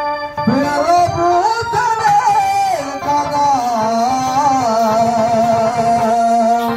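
A man sings a Telugu devotional bhajan into a microphone, holding long notes with wavering ornaments, over musical accompaniment.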